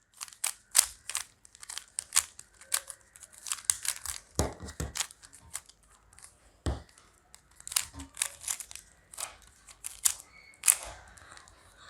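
A 3x3 Rubik's Cube being scrambled by hand: quick, irregular plastic clicks and rasps as its layers are twisted, with a few louder clacks.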